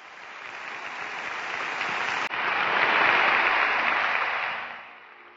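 Audience applauding, fading in, at its loudest about three seconds in, then fading away near the end.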